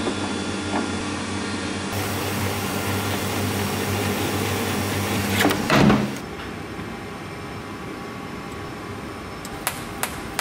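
Horizontal metal-cutting bandsaw running, its blade cutting through round titanium bar stock with a steady mechanical hum. There is a louder swell about six seconds in, after which it runs quieter, and a couple of light clicks come near the end.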